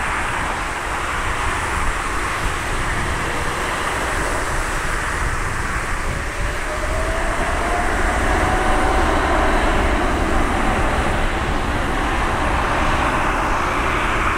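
Jet airliner engines running with a steady rush of noise. About six seconds in, a turbine whine rises in pitch and then holds as the sound grows slightly louder.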